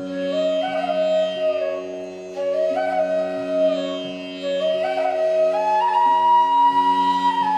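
Background music: a flute playing slow, long-held notes that step up and down over a steady drone.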